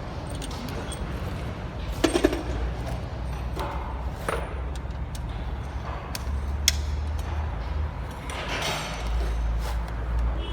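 A few sharp metallic clinks and knocks of tools and parts being handled, over a steady low rumble, with a short scraping rush near the end.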